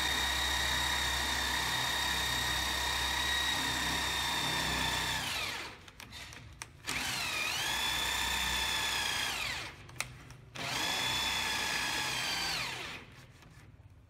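Electric drill boring into the edge of a wooden door, its motor whining at a steady pitch. It runs three times, the pitch sinking each time it winds down and stops, with a single click between the second and third runs.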